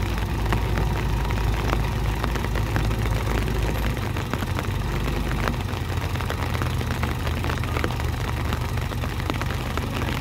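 Diesel engines of a Mahindra tractor and a JCB 3DX backhoe loader running together, a steady low drone with a clattering edge that eases slightly about four seconds in.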